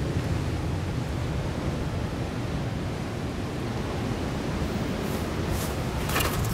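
Steady low noise of surf and wind, with a few brief clicks near the end.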